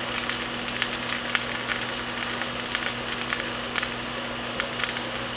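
Breaded fish fillets frying in melted butter in a nonstick pan: a steady sizzle dotted with frequent small crackling pops.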